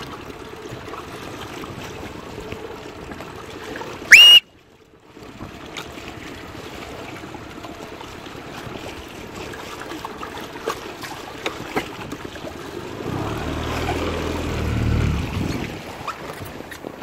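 Steady rush of wind and water around a small boat on open water. About four seconds in, a short, very loud upward-gliding whistle cuts in, followed by a second of near silence. A low rumble swells for a couple of seconds near the end.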